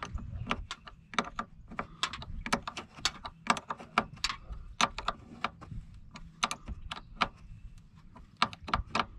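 Ratchet wrench with an 8 mm socket clicking in short uneven runs as it tightens a nut on a truck battery's cable terminal.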